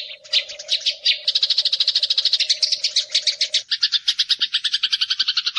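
Eurasian tree sparrow chirping in a fast, tight, unbroken run of short high notes, about ten a second.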